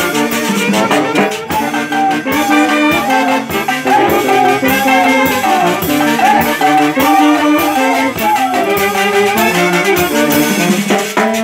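Live Andean orquesta playing a dance tune: a section of saxophones carries the melody over a steady beat on drums and cymbal, with harp and other instruments in the band.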